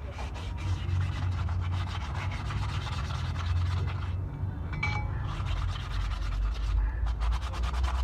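Rapid hand rubbing strokes, like scrubbing or sanding, that stop briefly about halfway through and then resume, over a steady low hum.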